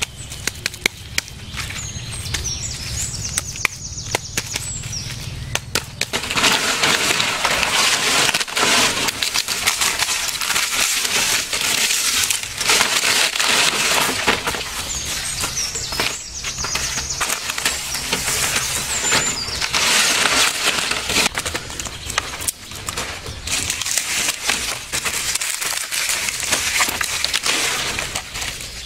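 Dry palm fronds, leaves and sticks being dragged, shaken and piled by hand: a loud crackling rustle full of small snaps, getting denser about six seconds in.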